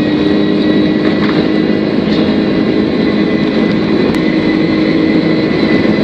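Airliner's high-bypass turbofan engine at takeoff thrust during the takeoff roll, heard from inside the cabin: a loud steady rush with a high whine held at one pitch.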